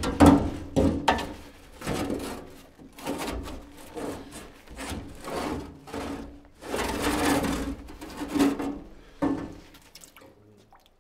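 A metal scoop scraping ash and soot out of the steel firebox of a wood-fired hot tub stove: a run of rough, uneven scrapes, each half a second to a second long.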